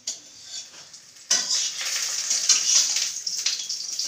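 Metal spoon clinking and scraping in a small steel bowl. About a second in, a loud steady hiss starts suddenly and carries on.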